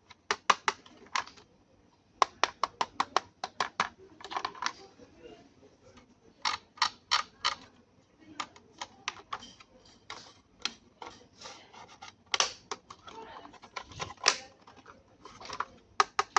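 Runs of small, sharp clicks and taps in quick clusters, from hands handling the plastic RC tank truck and its packaging.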